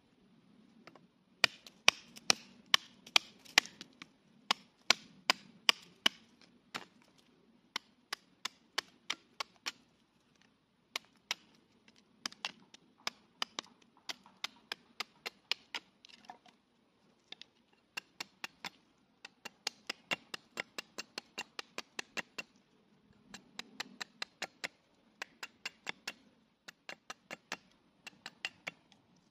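Cold Steel Trail Hawk tomahawk chopping at a thin stick of wood held against a stump. It makes a long series of sharp, light strikes, about two to three a second, in bunches with short pauses between them.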